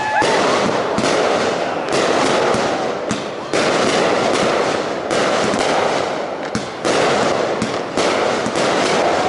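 Aerial fireworks going off: sharp shell bursts about once every second or so over a dense, continuous crackling.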